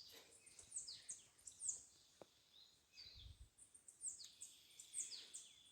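Faint birds chirping: many short, high calls, each sliding down in pitch, repeated on and off.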